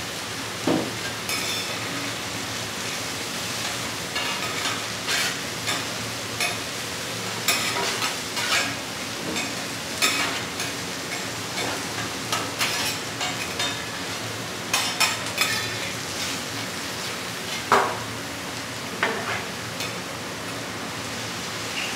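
Scallops and vegetables sizzling steadily on a flat steel griddle, with irregular sharp scrapes and clanks of metal spatulas against the griddle as the food is turned.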